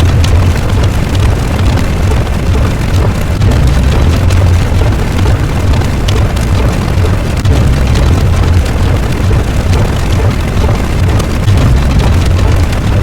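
Loud, continuous rumbling noise effect with a deep bass that swells and ebbs every few seconds under a dense crackle.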